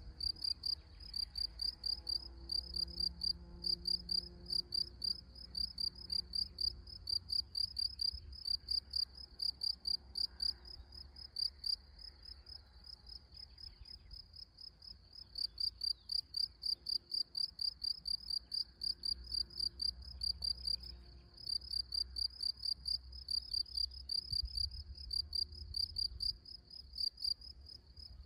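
A cricket chirping in a fast, regular train of high-pitched pulses, with a few short pauses and a softer stretch midway. A faint low rumble runs underneath.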